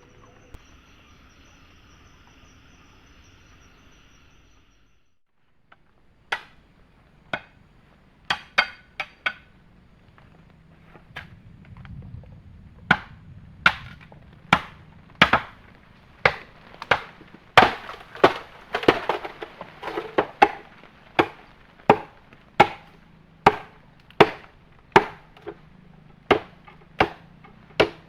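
Steady chirring of forest insects, cut off about five seconds in. Then chopping strokes of a blade into wood, a few scattered blows at first, settling into a steady rhythm of a blow roughly every three-quarters of a second.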